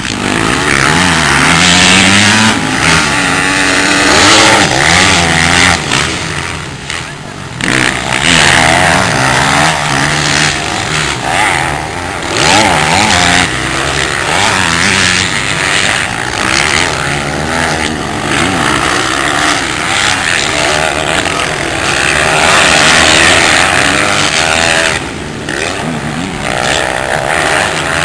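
Engines of several motocross bikes racing, revving up and down through the gears in overlapping rising and falling sweeps, dipping briefly about seven seconds in and again near the end.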